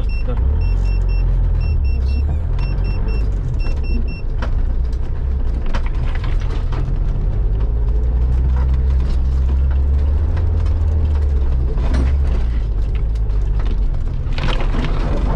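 Off-road 4x4's engine running with a steady low drone as it drives over a rough forest track, with a few sharp knocks from the body and suspension. A short electronic beep repeats about twice a second for the first four seconds.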